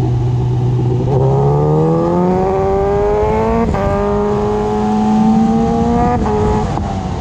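Suzuki GSX-S1000's inline-four engine accelerating, rising in pitch from about a second in, with a gear change about halfway and a drop in pitch near the end, under steady wind rush on a chest-mounted camera's internal mic.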